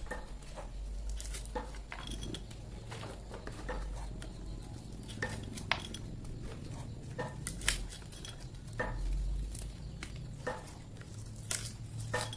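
Hand-cranked areca nut husker cracking and stripping dried areca nuts: irregular sharp clicks and metallic clinks as the nuts are crushed in the turning mechanism, over a low rumble from the crank.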